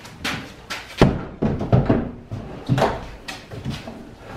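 Hollow knocks and thumps of a plastic Pelican Maxim 100 NXT kayak hull being pushed onto and settled on wall-mounted storage hooks. The sharpest knock comes about a second in, followed by several smaller knocks.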